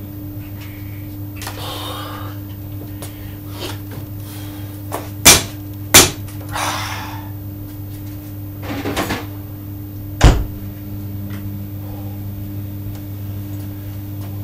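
Steady low hum with a few sharp knocks: two close together about five and six seconds in, and a heavier, deeper thump about ten seconds in, with soft rustling in between.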